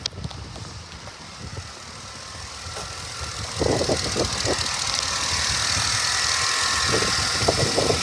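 Chevrolet Avalanche pickup's V8 engine comes up about three and a half seconds in, with a few uneven bursts, then runs at a steady idle.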